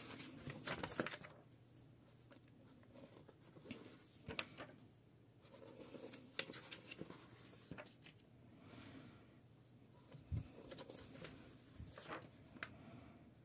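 Pages of a large paper instruction booklet being turned by hand: faint rustles and soft flaps of paper with a few light taps, and a brief sliding swish about two-thirds of the way through.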